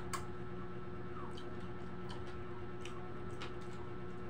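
Faint scattered clicks and crunches of people eating crispy fried fish with their hands, over a steady low hum from an electric wall fan. The sharpest click comes just at the start.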